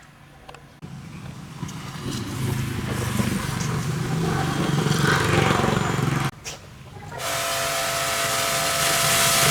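High-pressure washer: a low machine hum builds up, cuts out briefly about six seconds in, then comes back as a steady, loud spray hiss with a constant whine.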